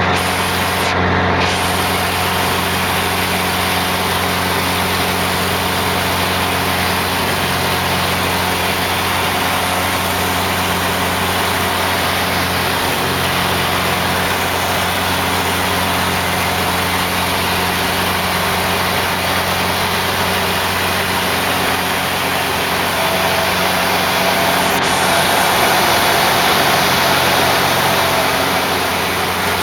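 Laser 230 aerobatic monoplane's piston engine and propeller droning steadily in flight. A higher tone swells in and the sound grows a little louder for a few seconds near the end.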